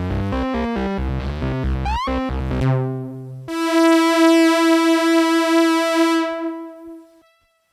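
Dave Smith Mopho monophonic analog synthesizer playing presets. It starts with a fast sequenced bass pattern of short notes, with one quick upward pitch sweep. About three and a half seconds in, a single bright sustained note comes in and fades away near the end.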